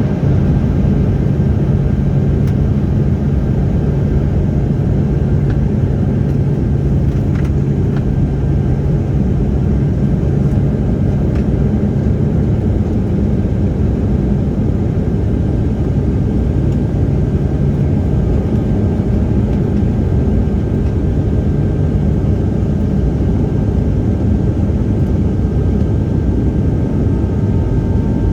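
Embraer jet's turbofan engines running at takeoff power: a loud, steady rumble with a low hum that fades out about two-thirds of the way through.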